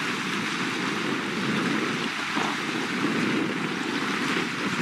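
Small waves washing and lapping against the shore in a steady rush of water noise.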